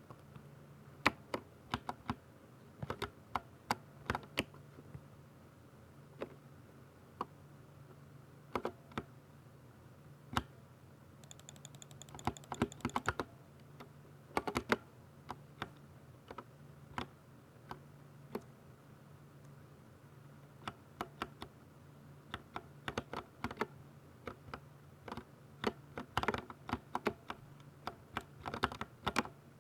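Typing on a Ducky 60% mechanical keyboard with silver switches: irregular sharp keystroke clicks, coming in quick runs broken by short pauses.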